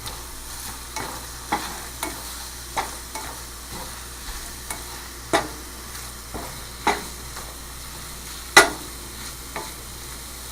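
Eggs frying in a pan with a steady sizzle, while a utensil stirs and knocks against the pan at irregular intervals, the loudest knock near the end.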